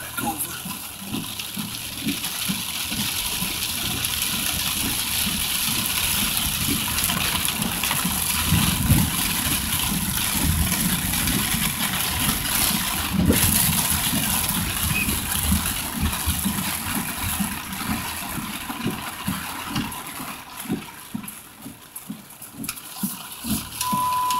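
Heavy rain hitting a car's roof and windshield, heard from inside the moving car: a dense steady hiss that grows heavier over the first few seconds and eases slightly near the end. A single sharp knock sounds about thirteen seconds in.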